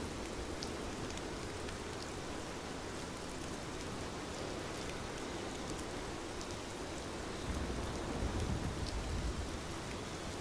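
Steady rain falling, an even hiss with scattered small drop ticks. A low rumble swells briefly about three-quarters of the way through.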